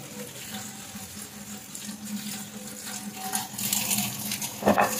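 Kitchen tap running into a stainless steel sink while a wooden chopping board is rinsed and scrubbed under the stream, with a sharp knock near the end.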